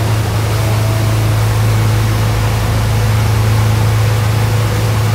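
Twin 7.4-litre MerCruiser big-block V8 engines of a Sea Ray 330 Sundancer running steadily at cruising speed, a constant low hum under the rush of wind and water as the boat runs across the lake.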